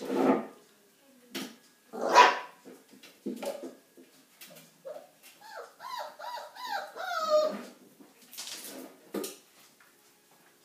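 Whippet puppies barking and yipping as they play: two loud barks in the first couple of seconds, then a run of high, wavering whines and yips past the middle, and a few more short barks near the end.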